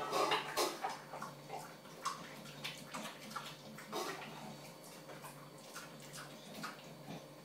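English bulldog eating from its bowl: irregular wet smacking, licking and chewing with occasional sharper clicks, busiest in the first couple of seconds and then sparser. No growl is heard from this dog, which used to guard its food bowl.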